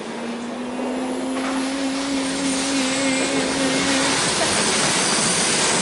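A train approaching along the platform: a steady low hum for about four seconds while a broad rushing rumble grows steadily louder.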